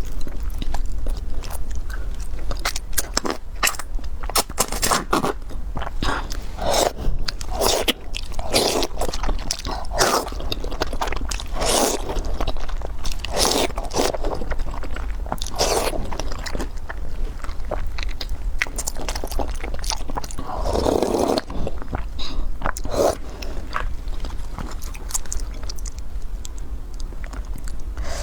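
Close-miked chewing and crunching of food, with irregular bites and moist mouth sounds, as in eating-show ASMR.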